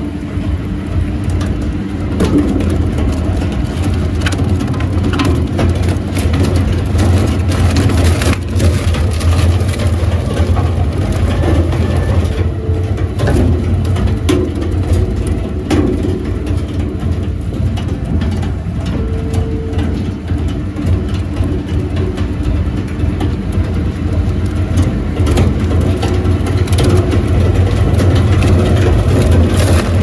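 WEIMA WL 6 single-shaft wood shredder running under load: a steady low drone from the drive, with the toothed rotor crunching and cracking scrap wood and offcuts into chips in irregular sharp cracks.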